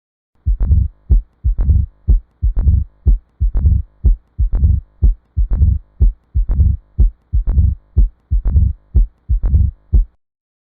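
Heart sounds heard through a stethoscope: a steady lub-dub heartbeat of about one beat a second, ten beats in all. It starts about half a second in and stops abruptly near the end.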